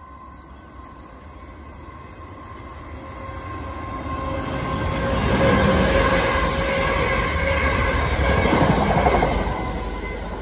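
Class 444 Desiro five-car electric multiple unit passing. The noise of its wheels on the rails grows as it approaches, is loudest for several seconds as the carriages go by, and fades near the end.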